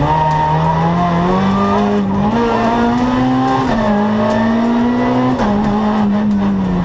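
Renault Twingo R2 rally car's four-cylinder engine heard from inside the cabin, pulling hard under acceleration with its pitch climbing. The note drops suddenly at an upshift about halfway through and again near the end, then climbs again.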